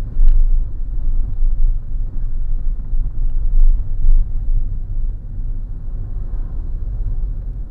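Low, steady rumble of a car's engine and tyres heard inside the moving car.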